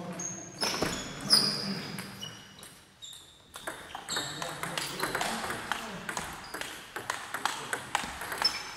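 Table tennis ball clicking sharply off paddles and the table, each hit with a short ringing ping. There is a brief lull about three seconds in, then a quick run of clicks.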